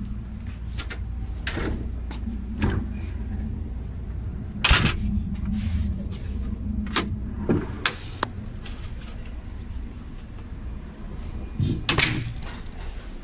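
Scattered knocks, clunks and footsteps on the floor of a standing 115-series train car, over the steady low hum of the train. Near the end comes a cluster of clunks and rattles as the car's metal sliding door is pulled open by its handle.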